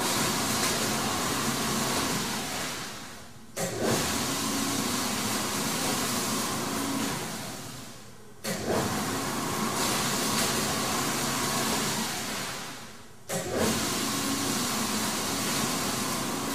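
A flatbed roller die cutter cycling continuously in automatic mode. Each pass starts suddenly, runs steadily for about four seconds, then winds down, and the cycle repeats about every five seconds.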